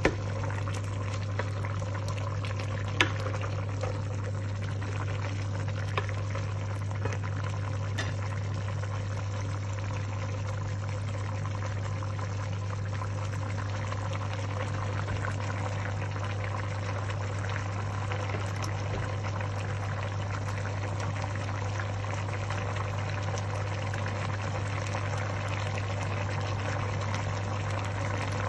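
Pot of chicken in broth boiling on the stove, a steady bubbling hiss with a few sharp ticks in the first eight seconds, over a constant low hum.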